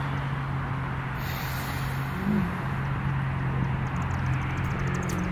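A steady low motor hum over a background hiss of outdoor noise.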